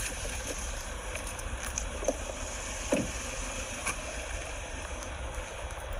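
Steady rustling and wind noise on a police body-worn camera's microphone as the wearer climbs out of a patrol car and walks, with a few faint knocks.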